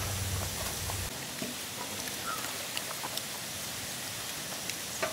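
Outdoor ambience with a steady high hiss and scattered soft clicks as a hand mixes rice and curry on a banana leaf. A low hum drops out about a second in, and a short chirp sounds about two seconds in.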